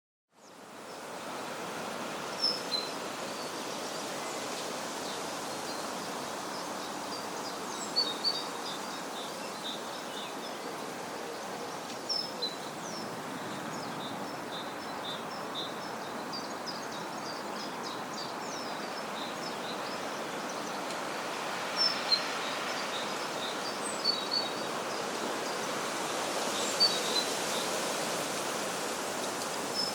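Countryside ambience: a steady background hiss with birds chirping over it, a few sharp high calls every few seconds and a busier run of quick chirps in the middle. It fades in from silence at the very start.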